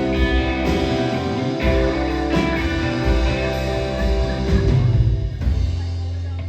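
Rock band playing live: guitar chords held over bass, with drum and cymbal hits. About five and a half seconds in, the drums drop out and a low bass note rings on.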